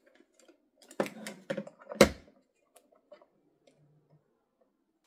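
Plastic clicks and knocks as a battery-powered plastic cat toy is handled: a few sharp clicks about a second in, then a louder knock at about two seconds as it is set down on the table.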